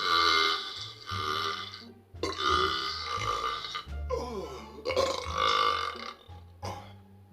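A man belching loudly after drinking carbonated cola, a run of long burps one after another, one sliding down in pitch about four seconds in.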